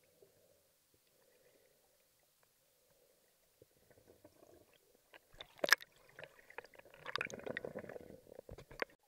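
Underwater sound heard through a submerged camera: a faint muffled hum, then from about four seconds in, water sloshing and bubbling with scattered sharp clicks and knocks. The loudest is a single sharp click near the middle.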